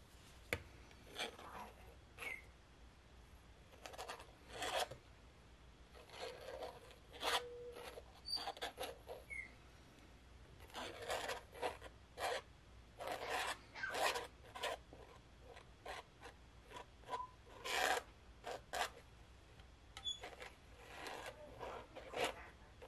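Metal palette knife scraping and smoothing wet acrylic pouring paint across a canvas, in many short, irregular strokes that come in runs.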